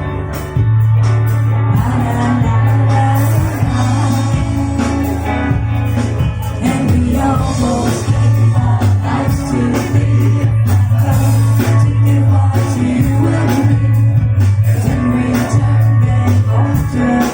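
A rock band playing live, with guitar, a strong steady bass line and a singer.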